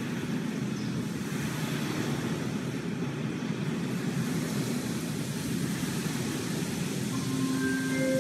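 Student concert band playing a low, rumbling texture with no clear pitch. About seven seconds in, several held notes come in at once and the sound swells slightly.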